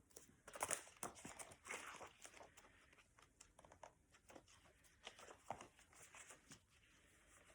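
Faint rustling and crinkling of a book being handled, with light irregular clicks and scrapes as its cover and pages are opened and turned.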